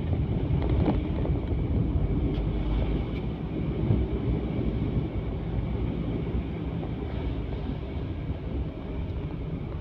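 A vehicle on the move: a steady low rumble of engine and road noise that sways slightly in level.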